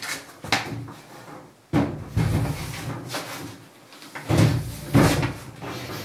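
Front-loading washing machine being shoved and rocked across a floor by hand, bumping and scraping in four or five short heavy shoves with brief pauses between.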